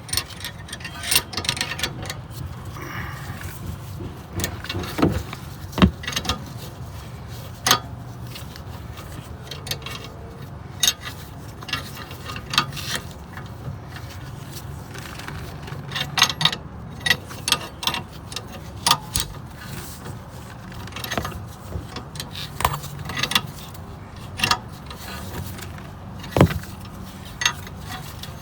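Metal hand tools clicking and clinking irregularly as wrenches and a ratchet tighten a rear brake caliper bolt, with many sharp separate clicks.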